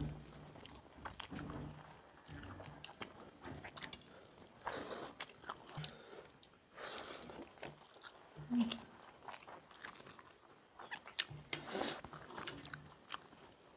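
Two people eating rice, curry and fried chicken with their hands from steel plates: biting and chewing, with irregular small clicks and scrapes.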